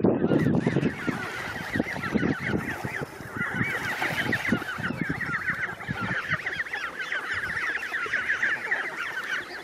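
Geese and goslings calling: a dense chorus of quick, high peeps that goes on without a break, with lower honking in the first second or so.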